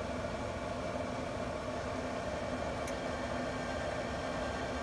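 Camp Chef pellet grill's combustion fan running with a steady hum, with a faint click about three seconds in.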